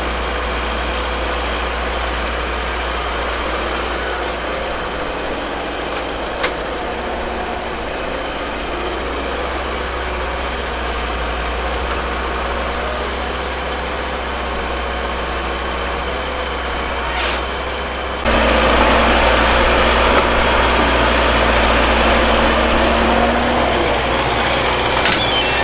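Heavy diesel machinery, an excavator and a farm tractor, running steadily. The sound jumps abruptly louder and harsher about eighteen seconds in.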